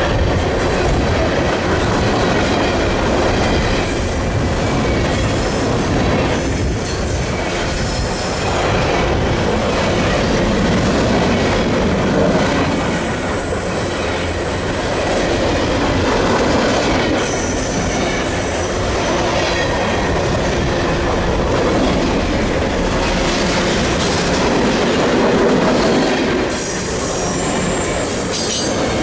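A CN grain train's cars rolling past in a steady rumble, with high-pitched steel wheel squeal that comes and goes several times.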